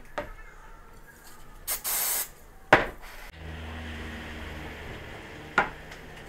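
Wooden strips being handled and laid on a metal-topped workbench: rubbing and scraping of wood, a short hiss about two seconds in, a sharp knock a little before the middle, and a second knock near the end.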